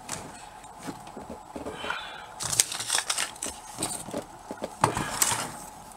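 Handling noise from a miniature kitchen roombox being gripped and shifted about on a cutting mat: irregular light knocks, clicks and scrapes, with louder scraping about two and a half seconds in and again about five seconds in.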